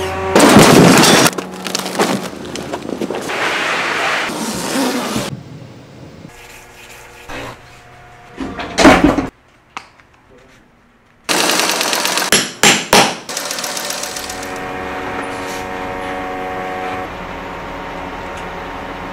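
Cut-together work sounds: loud bursts of rapid rattling clatter near the start and again around nine and twelve seconds, a near-silent break around ten seconds, then from about fourteen seconds the steady hum of the grapple truck's engine running.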